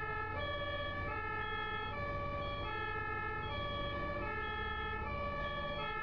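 German ambulance two-tone siren (Martinshorn) alternating steadily between a high and a low tone, heard from on board the ambulance, with a low steady engine and road hum underneath.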